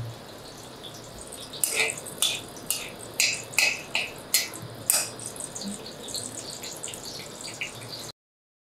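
Cinnamon sticks sizzling in hot oil in an aluminium kadai: a steady hiss with a string of sharp crackles and pops between about two and five seconds in, while they are stirred with a slotted ladle. The sound cuts off abruptly near the end.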